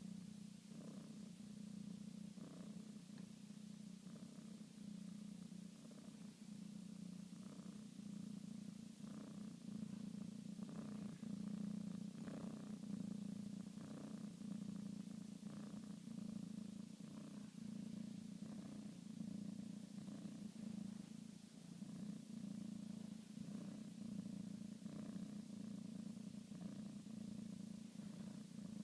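A sleeping cat snoring: a steady low rumble that goes on without a break, with soft breathy swells over it.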